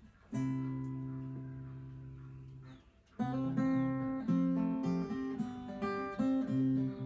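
Acoustic guitar: one strummed chord left ringing and fading for over two seconds, then, after a brief pause, rhythmic strumming through changing chords.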